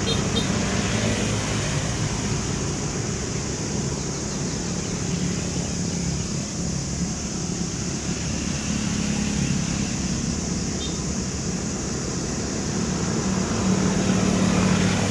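Steady, distant rumble of an airliner's jet engines at idle, mixed with the engines of fire trucks pumping a water-salute arch, with a low hum that swells a little near the end.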